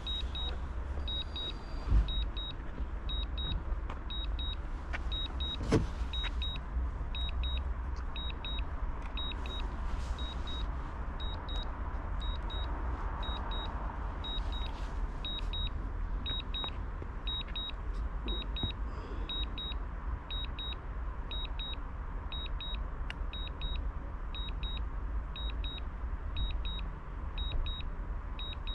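Drone remote controller beeping a short high double beep about once a second, the alert it gives while the drone flies a return-to-home, over steady wind rumble on the microphone.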